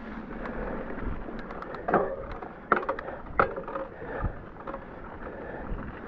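Specialized Fuse hardtail mountain bike rolling over a wet trail: steady tyre and drivetrain noise with a run of sharp knocks and rattles from the bike over bumps, the loudest about two, three and three and a half seconds in, some with a brief metallic ring.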